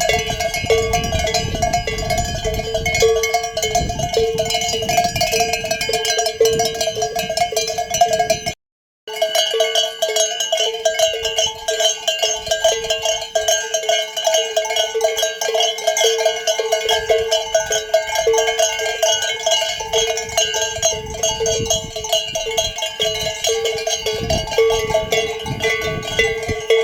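Bells on a flock of sheep clanging continuously, many strikes overlapping as the animals move. The sound cuts out completely for about half a second a third of the way in.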